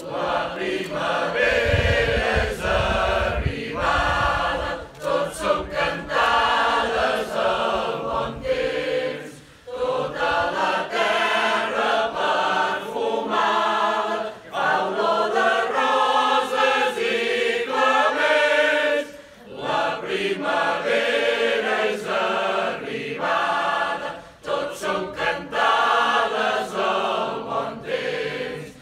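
Mixed choir of men's and women's voices singing caramelles, traditional Catalan Easter songs, in phrases separated by short pauses about every five seconds.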